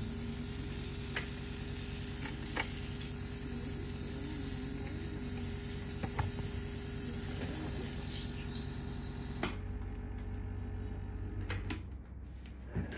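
A steady hiss with a few faint, sharp ticks scattered through it; the hiss drops away abruptly about nine and a half seconds in, leaving a lower, quieter background.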